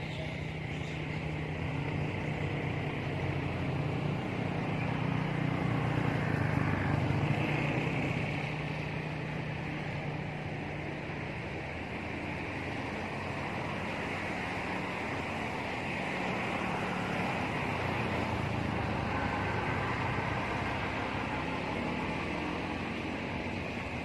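Steady low hum of a distant motor over continuous outdoor background noise, somewhat louder in the first half.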